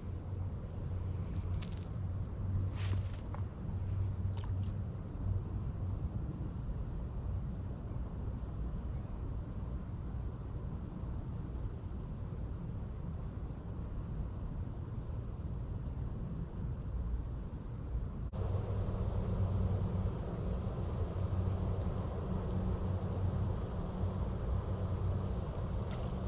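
An insect trilling: a steady, high-pitched pulsing trill that cuts off suddenly about two-thirds of the way through, over a steady low rumble.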